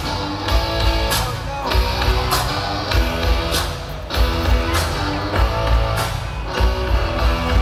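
Loud music with a heavy, steady beat, a hit about every 0.6 seconds over a deep bass line.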